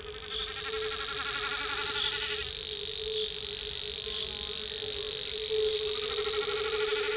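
Frogs calling in a marsh chorus, with rattling pulsed croaks coming in waves, under a steady high-pitched buzzing reel that carries on throughout.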